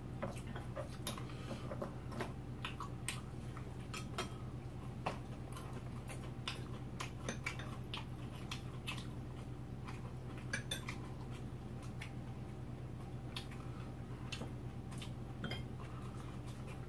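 Chopsticks and spoons clicking against bowls and dishes while eating: scattered light clicks, irregularly spaced, over a steady low hum.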